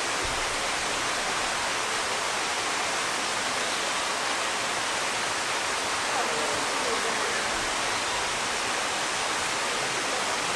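Steady rushing noise of falling water, like a waterfall, holding at an even level.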